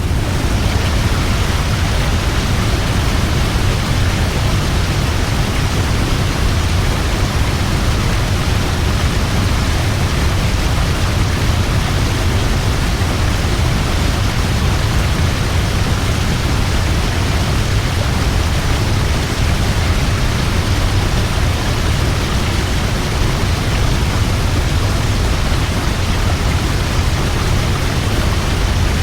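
Large waterfall: a steady, loud rush of falling water with a deep low rumble.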